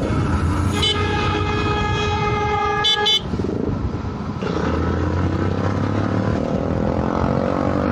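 A vehicle horn holds one steady note for about two seconds over a running motorcycle engine. The engine's pitch climbs slowly in the second half as it picks up speed.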